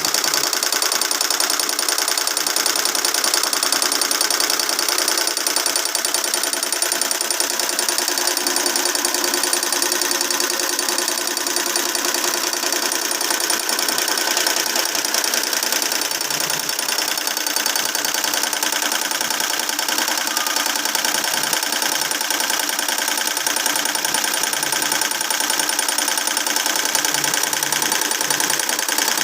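Single-head computerized embroidery machine stitching steadily, its needle running in a fast, even clatter.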